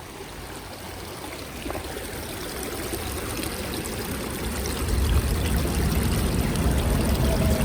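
Creek water running and trickling, a steady rushing that grows louder, with a deeper rumble from about two-thirds of the way in.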